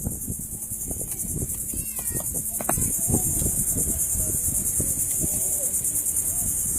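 Crickets chirping in a dense, rapidly pulsing chorus that gets louder about three seconds in. Scattered low knocks and faint distant voices lie underneath.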